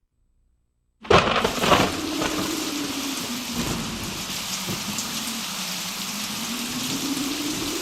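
About a second of silence, then a sudden sharp crack of thunder that cuts in loudly, followed by steady pouring rain.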